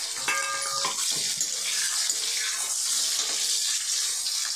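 Chopped onion sizzling in hot oil in a kadhai: a loud, steady frying hiss.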